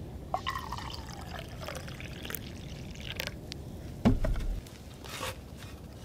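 Liquid poured from an insulated carafe into a small cup, splashing and trickling, the pitch of the fill changing as it runs. A single loud thump about four seconds in.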